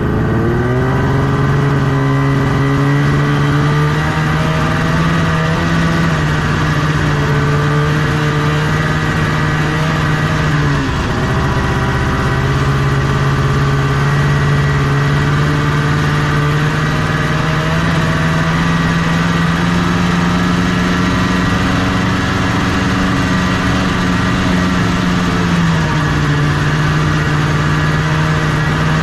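1974 Arctic Cat Cheetah 340 snowmobile's Kawasaki 340cc two-stroke engine running under way. Its pitch dips and comes back about a third of the way in, climbs slowly after that, and drops again near the end.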